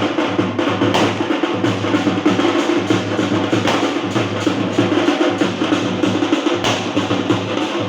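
Street procession band drums beating a fast, dense rhythm, loud, over a steady low drone.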